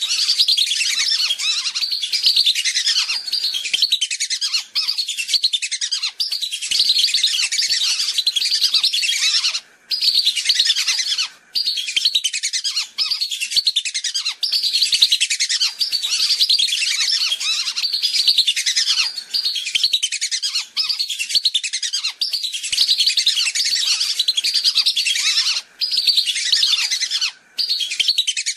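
A flock of whistling ducks calling: dense, overlapping high whistled chirps, almost unbroken, with a few short pauses around the middle and near the end. It is a lure recording used to call whistling ducks in.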